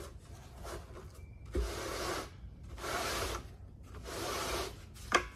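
Plastic lid ring of a 63-gallon drum being twisted on over mesh bug netting: a scraping rub with each turn, several in a row, then a sharp click near the end.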